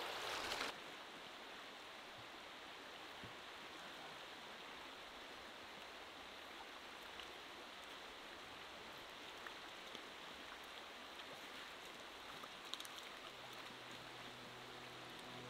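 Small stream's water running steadily over riffles, a soft even rush of flowing water.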